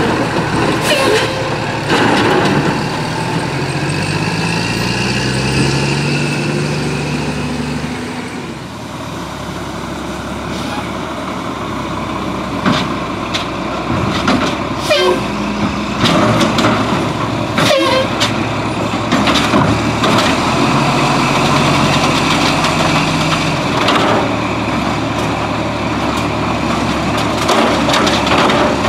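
Mack LE garbage truck with an Amrep Octo side loader: its engine revs up in rising steps a couple of seconds in as the truck works and pulls ahead on chained tires. In the second half come many sharp metallic clanks and rattles as it drives and its automated arm grabs a cart.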